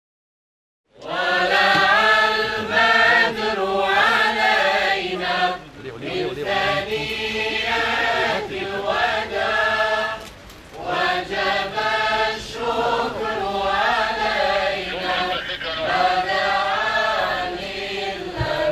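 A choir chanting in unison in long melodic phrases, starting about a second in, with brief pauses between phrases.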